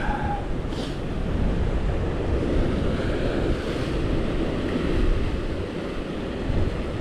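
Sea surf washing steadily around the rocks, with wind rumbling on the microphone.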